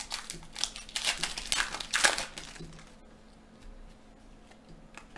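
Plastic wrapper of a hockey card pack crinkling and tearing as it is opened, loudest about two seconds in. It then quietens to a few faint clicks of the cards being handled.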